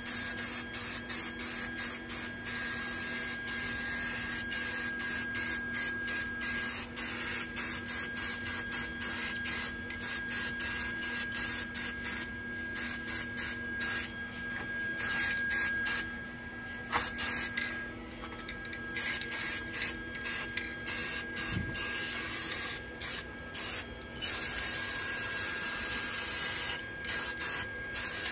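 Aerosol spray-paint can hissing in many short on-off bursts, with a few longer sprays and a quieter pause in the middle.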